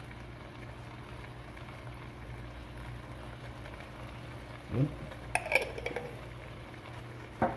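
Shrimp cooking in melted butter in a wok, a low steady sizzle over a faint hum, as hot chili oil is drizzled on. About five seconds in come a short rising sound and a few clinks of utensil or bottle on the pan, with one more knock near the end.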